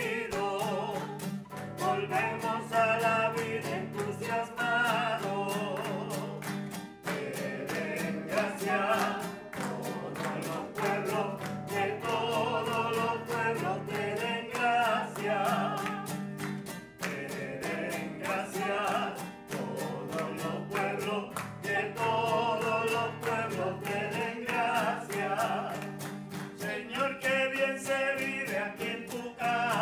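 Church choir singing the closing hymn of a Mass to strummed guitar accompaniment, phrase after phrase with short breaths between.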